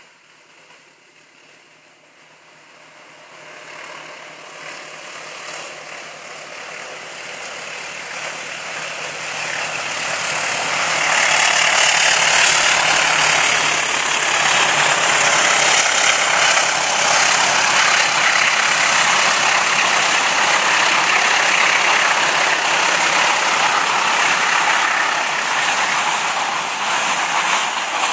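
A passenger train hauled by a CC206 diesel-electric locomotive approaches, its engine growing steadily louder over about ten seconds. It then runs loud and steady as the locomotive and coaches pass.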